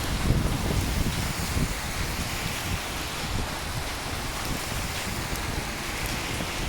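Steady rain falling on hard surfaces, an even hiss with a low rumble underneath that eases off over the first couple of seconds.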